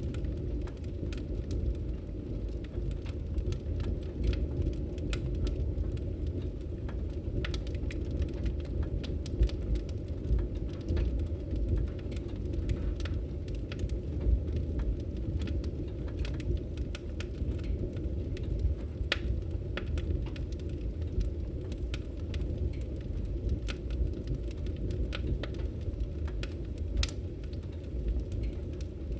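Wood fire in a fireplace crackling: many sharp, irregular pops and snaps over a steady low rumble.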